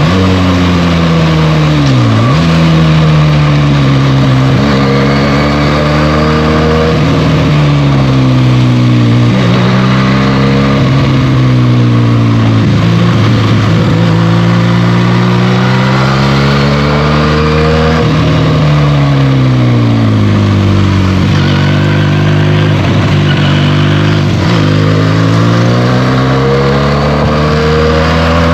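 Benelli TNT 300's parallel-twin engine through its stock exhaust, under way on a motorcycle ride: the engine note climbs and falls again and again, with quick dips in pitch as the rider shifts gears and rolls on and off the throttle.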